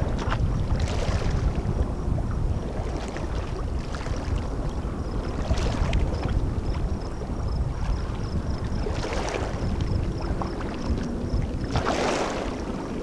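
Oars dipping and splashing in lake water as a small frameless inflatable pontoon boat is rowed, one stroke every few seconds, the strongest near the end, over a steady low rumble of wind on the microphone.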